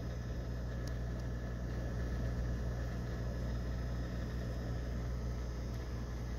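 Steady low hum with a soft even hiss from running aquarium equipment.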